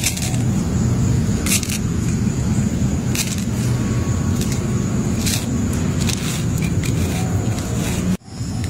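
Apple snail egg clutch being crushed under a wooden board, with a few short crisp crackles as the eggs break, over a steady low rumble. The sound drops out briefly near the end.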